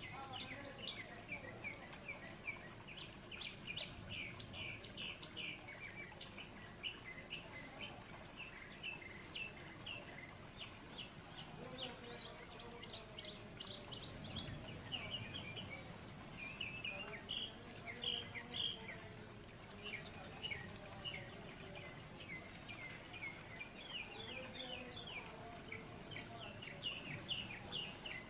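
Small birds chirping and twittering, a dense run of short high chirps, over a faint steady background hiss.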